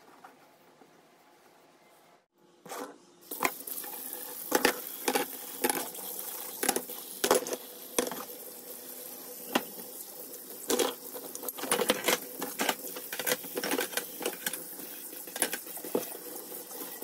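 Kitchen tap running into a stainless steel sink while gas-stove knobs and burner caps are scrubbed in soapy water, with frequent clinks and knocks of the parts against each other and the sink. The water starts about three seconds in, after a quiet start.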